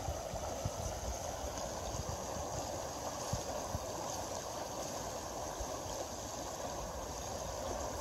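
Fast river current rushing steadily, a constant watery hiss.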